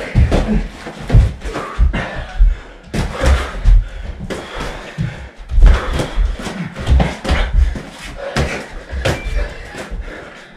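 Boxing gloves landing punches in an irregular run of thuds and slaps, with heavier thumps as two fighters clinch and bump into the wall, in a small room.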